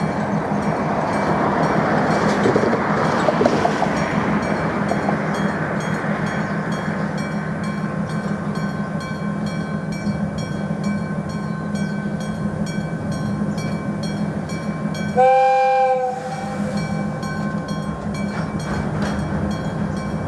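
Japanese level-crossing alarm ringing repeatedly over the steady running of an idling diesel locomotive. About fifteen seconds in, the locomotive sounds one short horn blast.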